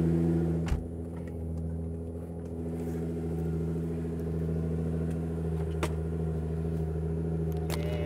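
Nissan GT-R R35's twin-turbo V6 idling steadily, with a single knock about a second in.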